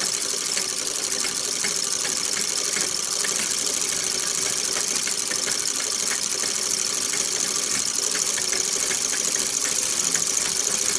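1920s Pathé 9.5mm film projector running steadily as film passes through it: a continuous mechanical rattle with a faint steady hum.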